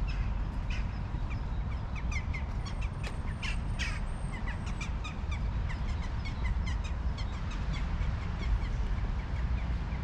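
Birds calling, many short calls one after another, over a steady low outdoor rumble.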